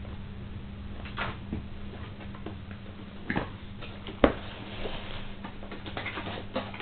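Cardboard box being opened by hand: scrapes and light clicks as the flaps are pulled and folded back, with one sharp knock about four seconds in.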